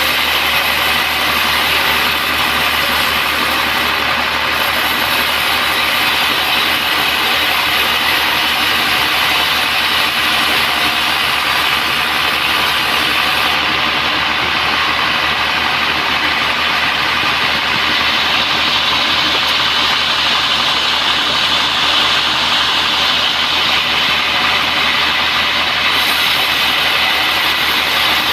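Band sawmill running: a steady, loud machine drone with a strong hiss.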